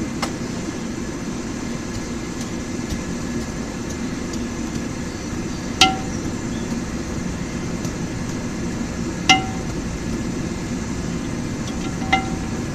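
Three single hammer strikes on steel at the anvil, spaced about three and a half seconds apart, each with a short metallic ring, over a steady low rushing noise.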